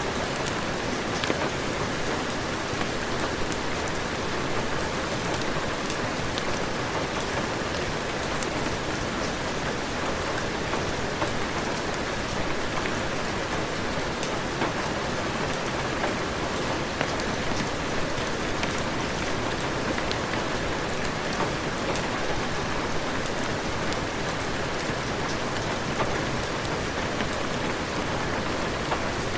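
Heavy rain falling steadily, a dense even hiss with many scattered sharp drop ticks.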